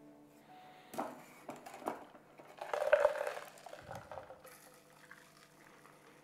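Stainless steel cocktail shaker tin and strainers: sharp metal clinks as the strainer is fitted, then ice and metal clattering as the tin is tipped, loudest about three seconds in. After that comes a softer sound as the shaken daiquiri is double-strained through a fine mesh strainer into a coupe glass.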